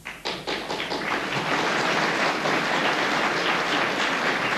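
Studio audience applauding: a few separate claps at the start, quickly building into steady, dense applause.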